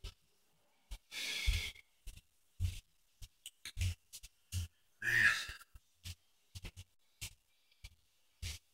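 Scattered handling noises from a person moving about: soft low knocks, sharp clicks and a couple of longer rustling or breathy bursts, the loudest about a second in and about five seconds in.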